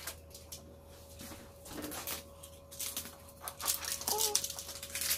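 Protective plastic film being peeled off a new refrigerator, crinkling and tearing in quick rustles that get busier in the second half.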